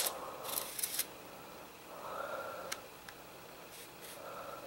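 Quiet handling noise: a few soft clicks and rustles, with the sharpest ones near the start and about a second in.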